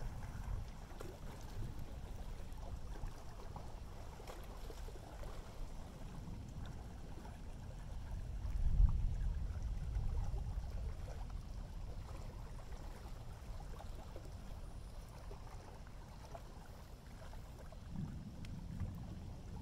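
Distant thunder: a low rumble that swells about eight seconds in and dies away over several seconds, with a smaller rumble near the end, over a steady background wash of wind and water.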